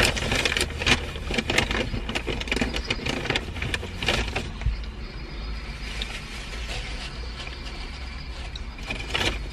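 Close-up crinkling and rustling of fast-food paper packaging and a napkin, with eating, as many short crackles through the first four seconds or so that thin out after that. A steady low hum from the car runs underneath.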